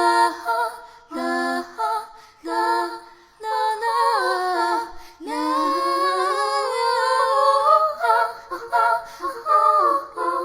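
A wordless high female voice singing an unaccompanied melody in short phrases with gliding notes, one long phrase in the middle rising slowly in pitch.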